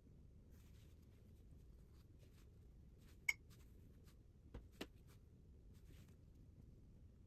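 Very faint strokes of a watercolour brush on paper in near silence, with one sharp click a little over three seconds in and two light knocks about a second and a half later.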